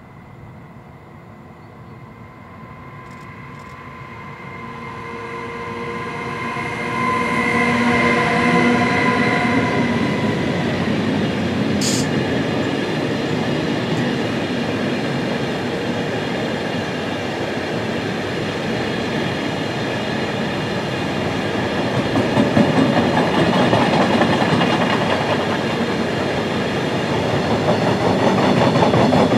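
An electric locomotive approaching and passing, a set of steady tones growing louder as it nears, followed by a long train of double-deck car-carrier wagons rolling by with a steady wheel-on-rail rumble and clatter. A brief high squeal about twelve seconds in.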